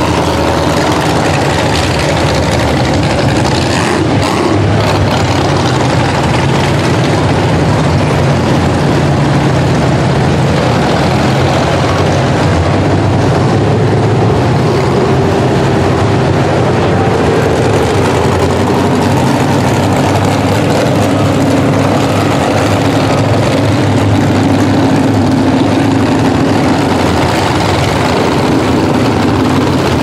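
Demolition derby car engines running loud and rough, idling and revving unevenly as the cars roll out one after another.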